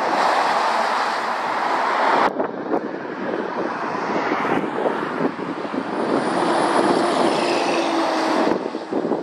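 Heavy diesel lorries passing close on the road: engine rumble and tyre noise, the sound changing abruptly about two seconds in and again midway. The last, a Scania car transporter, comes by with a low engine note that falls slightly as it passes.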